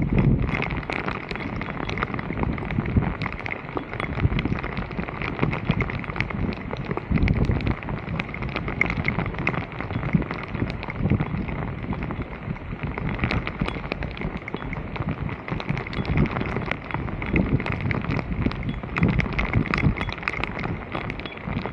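Floodwater rushing and splashing with a dense crackle, mixed with irregular low rumbles of wind buffeting the microphone.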